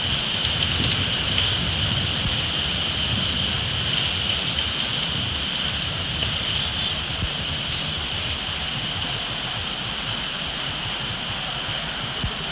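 Strong wind gusting across the outdoor microphone, a low rumble over a steady hiss that eases slightly in the second half. A few faint, high bird chirps come through the wind.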